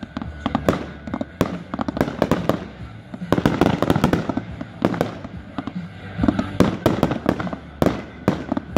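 Fireworks going off: a rapid, uneven string of sharp launch thumps, bangs and crackles from aerial shells and ground-launched cakes. The shots come thickest in clusters around the middle and again near the end.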